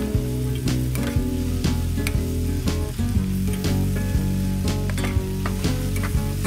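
Eggplant pieces and ground pork sizzling in a pan as they are stirred with a spatula, with scattered clicks of the spatula against the pan. Background music plays along with it.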